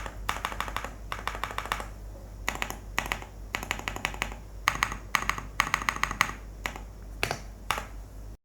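Typing on a 65% custom mechanical keyboard with a creamy key sound: quick runs of keystrokes in bursts, with short pauses between them.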